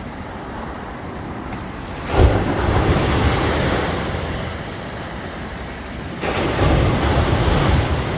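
Sea waves breaking on the shore: a big wave crashes with a thump about two seconds in, and another surge of surf builds about six seconds in. Wind buffets the microphone throughout.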